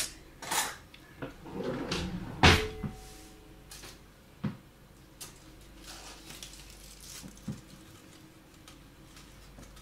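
Kitchen handling sounds: a few separate knocks and clinks, the loudest about two and a half seconds in with a short ring after it, then quieter light rustling and taps as aluminium foil is peeled off a baked corn cob on a plate.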